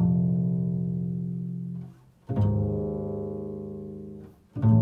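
Upright double bass playing three deep notes in a slow improvised line built on fourths. Each note starts sharply and fades away over about two seconds, with a new note about every two and a half seconds.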